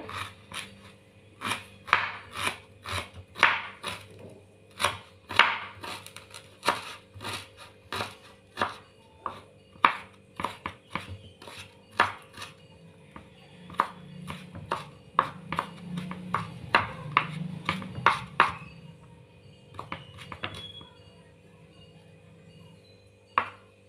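Kitchen knife chopping ginger small on a wooden cutting board: dozens of sharp knocks at an uneven pace, thinning to a few scattered ones over the last five seconds or so.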